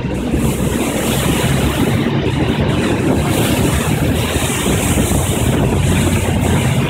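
Boat engine running steadily under way, a low hum that grows a little stronger near the end, with rushing wake water and wind buffeting the microphone.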